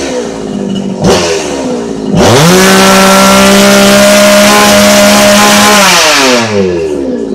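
Chinese two-stroke chainsaw engine: a quick throttle blip about a second in, then revved up to full speed, held steady for about four seconds and let fall back to idle. It pulls cleanly, with no stumbling, on a carburettor that has not been adjusted.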